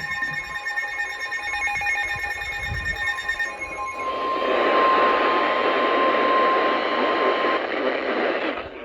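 Weather radio emergency alert tones. A pulsing, ringing multi-tone alarm sounds for about the first three and a half seconds. Then a single steady high warning tone plays over loud radio hiss and cuts off about seven and a half seconds in, just ahead of the spoken warning.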